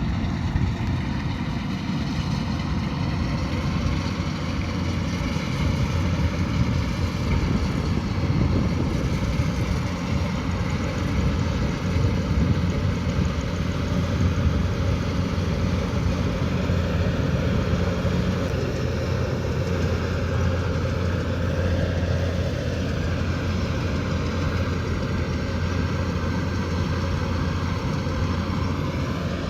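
Kubota DC108X combine harvester's diesel engine and machinery running steadily, with a heavy low drone and a faint high whine that wavers slightly in pitch.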